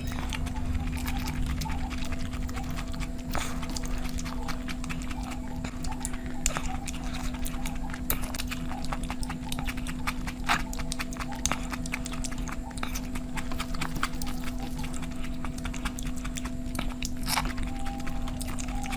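Close-up eating sounds: wet chewing and mouth smacking, with many irregular sharp clicks over a steady low hum.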